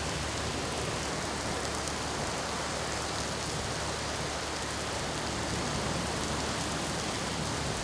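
Steady hiss of rain and hail-laden floodwater rushing around a vehicle wading through a flash flood, with a low rumble underneath.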